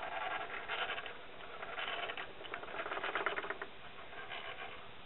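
Mole hand-cranked grinding wheel being turned, giving a scratchy, squeaking rasp in uneven surges; the owner thinks the noise might be the gearing.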